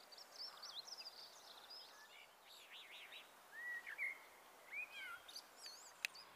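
Common blackbird singing: low, fluty warbled phrases followed by high, squeaky twitters, with quicker high-pitched song in the first seconds. A single sharp click comes just before the end.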